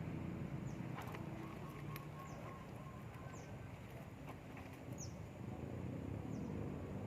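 Outdoor ambience: a bird gives short, high, downward-slurred chirps, about five of them spaced a second or so apart, over a steady low rumble, with a few faint clicks.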